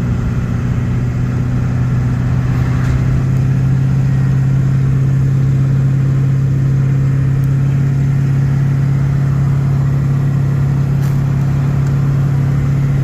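Pickup truck's engine and road noise heard from inside the cab while cruising at a steady speed: a loud, steady low drone.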